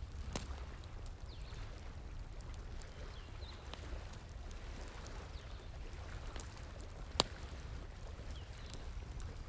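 Campfire crackling with scattered sharp pops, the loudest about seven seconds in, over a steady stream of running water.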